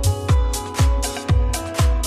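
Background music with a steady kick drum, about two beats a second, under held chords.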